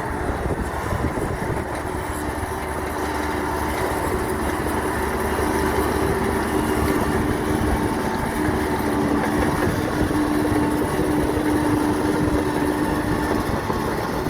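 Radio-controlled model construction vehicles running: a steady mechanical hum with a held whine.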